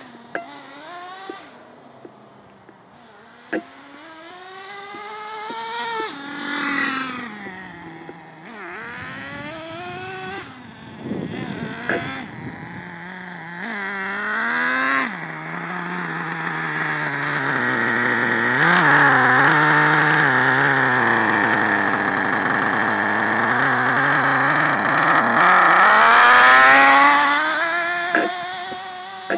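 Traxxas T-Maxx RC monster truck's two-stroke nitro engine running and revving up and down as the truck drives, its pitch rising and falling again and again. It is quieter for the first few seconds and loudest in the second half. This engine has its piston installed the wrong way round and does not want to stay running.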